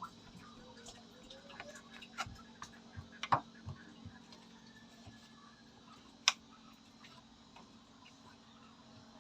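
Drain pipe and fittings being handled and dry-fitted: a few irregular sharp clicks and knocks, the loudest about three and six seconds in, over a faint steady hum.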